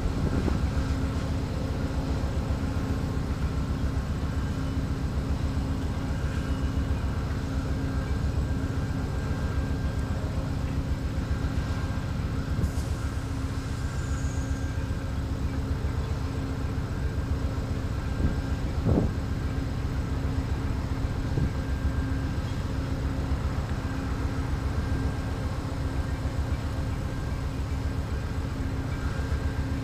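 Amtrak diesel passenger locomotive idling while the train stands at the station: a steady low engine rumble with a constant hum. A single short knock stands out about two-thirds of the way through.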